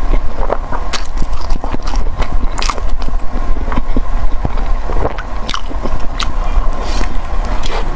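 Close-up eating sounds: food being bitten and chewed, with many irregular short clicks, over a steady low rumble.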